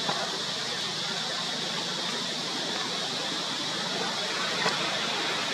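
Steady outdoor background hiss with a constant high droning band and no distinct calls, with a faint click about four and a half seconds in.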